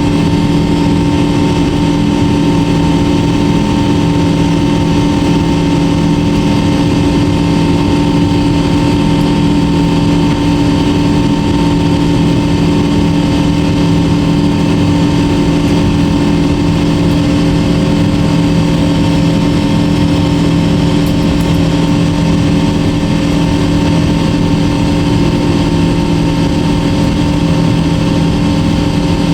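Jet airliner engine and airflow noise heard inside the passenger cabin: a loud, steady rush with several constant hums, holding the same pitch and level throughout.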